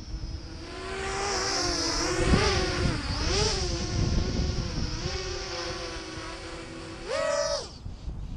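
Small FPV quadcopter's brushless motors whining, the pitch wavering up and down with throttle changes, then jumping up sharply about seven seconds in and dropping back half a second later.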